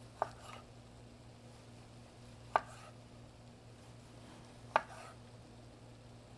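Chef's knife slicing through a tomato and knocking on a wooden cutting board, three separate knife strokes a couple of seconds apart.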